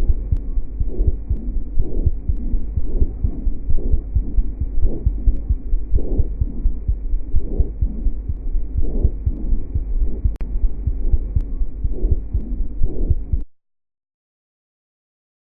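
Stethoscope recording of chest sounds: a low muffled rumble with a regular pulsing thud about once a second, then it cuts off suddenly near the end.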